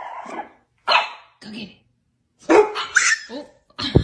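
A dog barking: several short barks in separate bursts, a quick cluster of them past the middle. A sharp thump right at the end.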